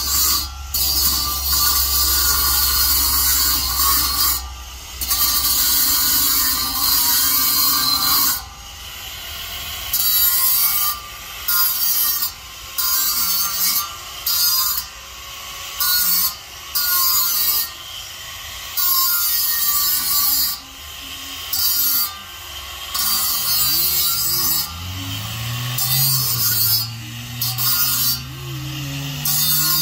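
Electric angle grinder with a cutting disc cutting into the rim of a stainless steel beer keg, with a harsh metal-cutting screech. It runs in one long cut for about the first eight seconds, then in repeated short bursts of about a second with brief pauses between them.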